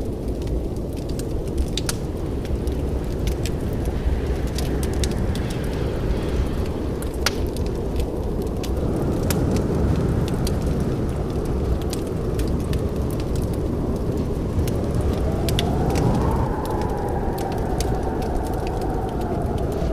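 Wood fire burning in a fireplace: a steady low rumble of flames with frequent sharp crackles and pops. Near the end a faint whistling tone rises and then falls away.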